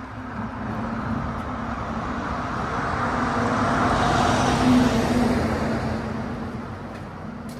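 A motor vehicle passing on the road, its engine hum and tyre noise swelling to a peak about four to five seconds in, then fading away.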